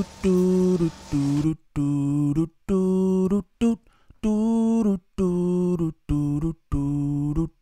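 Channel intro jingle: a rhythmic run of short, steadily held vocal-like notes stepping between two or three low pitches, each cut off cleanly, with brief silent gaps between them.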